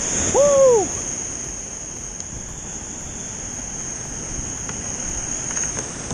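A single short whoop from a man's voice, rising then falling in pitch, about half a second in, over the steady wash of surf and wind on the microphone as a fishing ski comes ashore through the shore break.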